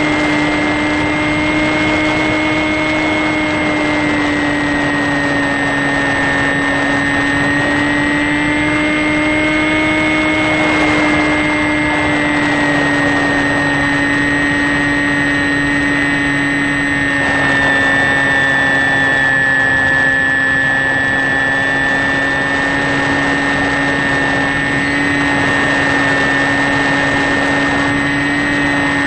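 The electric motor and propeller of a HobbyKing Sky Eye RC plane running steadily in cruise flight, a droning whine whose pitch wavers slightly, with air rushing past the onboard microphone.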